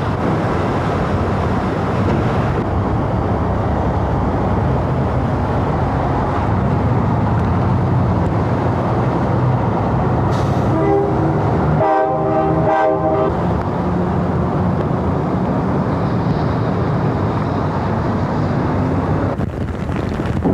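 A steady, loud rushing noise with a low hum under it, and a horn-like pitched tone sounding for about two seconds near the middle.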